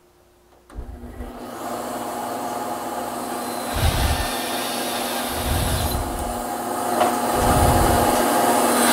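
Bandsaw switched on less than a second in; its motor runs up to a steady hum while crosscuts are made to lop the waste off a tenon's cheeks.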